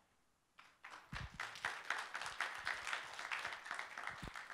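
Audience applauding. The clapping builds up about half a second in, holds steady, and cuts off suddenly near the end.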